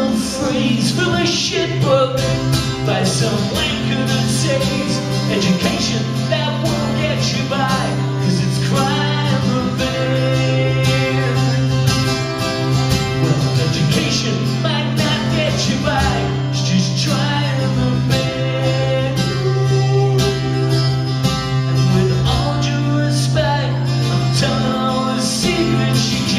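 A man singing live into a microphone while strumming his own acoustic guitar.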